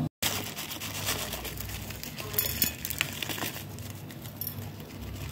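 Crinkly rustling with many small irregular clicks as crushed biscuit crumbs are handled and sprinkled over a frosted cake.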